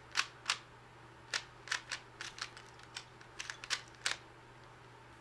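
A 3x3 Rubik's cube being turned by hand: a run of sharp plastic clicks as its layers snap round, about a dozen at uneven intervals, bunched closer together in the middle of the run.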